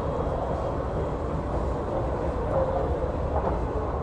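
Metro station ambience: a steady low rumble with a faint echoing hubbub, heard while riding a moving escalator.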